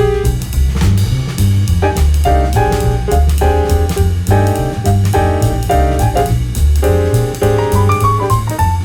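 Background jazz music with piano, walking bass and drum kit keeping a steady beat.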